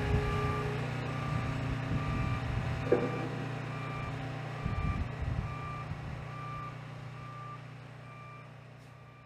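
A vehicle backup alarm beeping regularly over the steady low run of a heavy truck's diesel engine, with a sharp knock about three seconds in; the sound fades out near the end.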